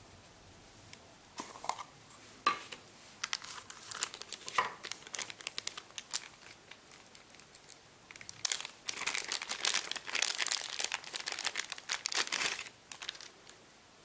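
A crinkly black plastic wrapper being handled and peeled off a new printer ribbon spool: scattered crackles at first, then a dense spell of crinkling in the second half that stops about a second and a half before the end.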